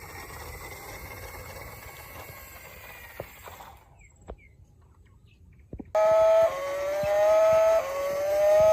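Faint steady noise with a few clicks and a short near-silent gap, then a loud electronic tone starting about six seconds in, held in steps that move down and then back up in pitch.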